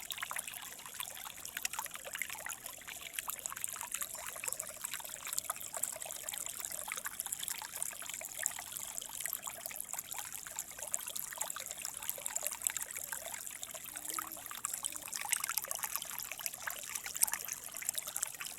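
Small river flowing steadily, water trickling and splashing over stones.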